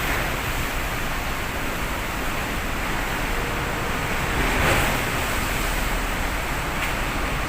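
Steady rush of strong wind and heavy waves, swelling briefly about five seconds in.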